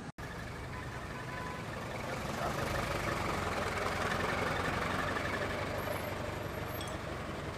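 A motor vehicle's engine running amid street noise, growing louder about two and a half seconds in.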